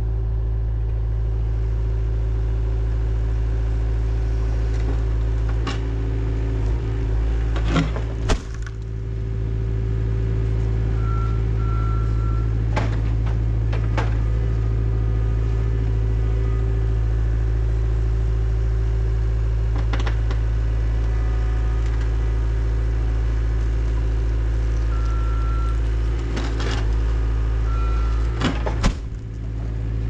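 Heavy equipment engine running steadily under load while The Beak concrete-removal attachment works, with a few sharp knocks and cracks of concrete being broken and pried up, about eight seconds in, twice around thirteen seconds, at twenty, and twice near the end. A few short beeps sound in the middle and near the end.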